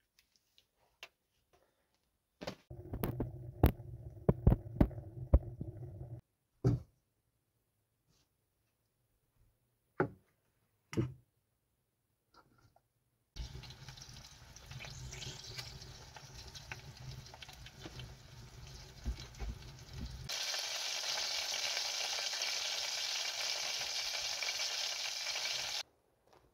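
Meat frying in fat on a stove top, sizzling with a steady hiss that turns louder and brighter about two-thirds of the way through, then cuts off suddenly. Earlier there are a few seconds of low hum with sharp, loud clicks, and scattered single clicks.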